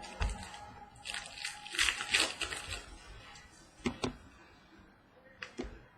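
Trading cards being handled while a pack is sorted through: a stretch of rustling and sliding about a second in, then a few light clicks as cards are flipped and set down.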